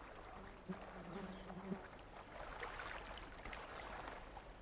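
A flying insect buzzing close by for a second or so, followed by faint splashing and crackling of shallow river water stirred by wading legs and a camera pole.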